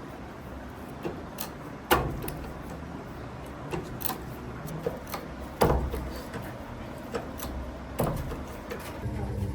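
Three sharp knocks a few seconds apart, with lighter clicks and taps between them, over a low background hum; a steadier machine hum starts near the end.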